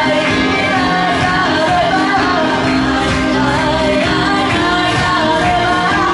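A woman singing a song live into a handheld microphone over a loud backing track, her voice carrying a wavering melody above steady low notes.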